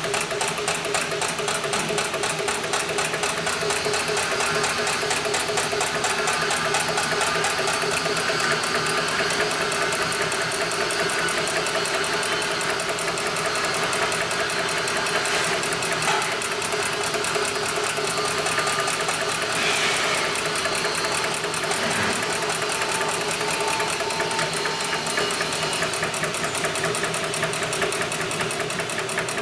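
Heavy-duty industrial sewing machine running at speed, a fast, even mechanical clatter of needle strokes that keeps going without a break.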